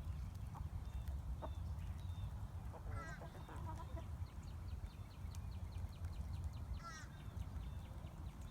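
Domestic chickens clucking: two short calls, about three seconds in and again near seven seconds, over a steady low rumble.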